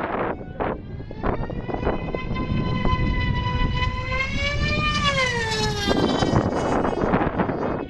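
Radio-control model airplane's glow engine running in flight: a steady pitched drone that rises and then falls away as the plane passes. Gusts of wind on the microphone near the start and again in the second half.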